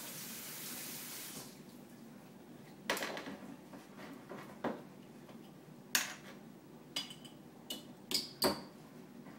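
Kitchen tap running for about a second and a half, then stopping. After that come a series of sharp clinks and knocks as a glass liquor bottle is handled on a countertop and a metal pour spout is pushed into its neck.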